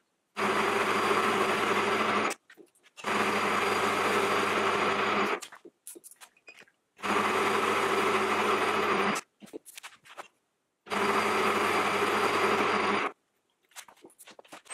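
Metal lathe running while a carbide insert turns down an aluminium bar: steady machine running and cutting noise in four stretches of about two seconds each, with short silences between them.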